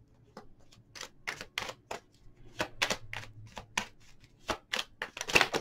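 Tarot cards shuffled by hand: a run of irregular crisp clicks and snaps from the card edges, growing denser and loudest near the end.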